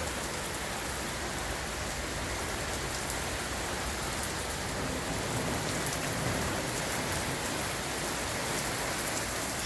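Heavy rain pouring steadily, a dense even hiss with scattered drop ticks on hard surfaces.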